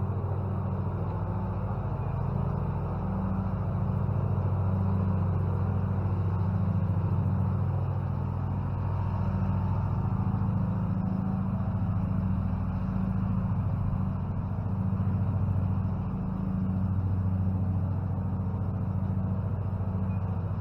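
Steady low rumbling drone that swells and eases slightly every few seconds.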